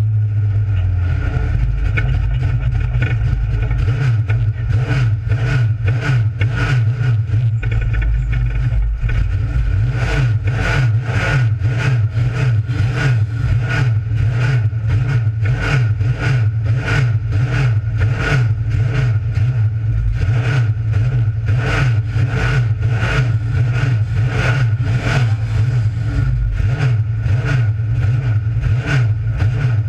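Dirt-track race car's engine running hard under racing load, heard loud from inside the roll-caged cockpit, with a steady low rumble.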